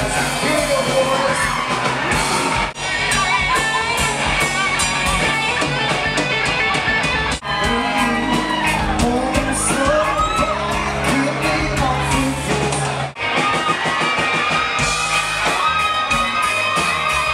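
Music with singing, steady and loud, broken by three brief sudden dips.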